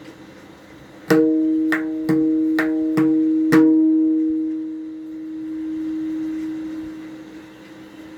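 Pakhawaj struck six times for a tone check, each stroke ringing out a clear pitched note that rings on and slowly fades after the last stroke.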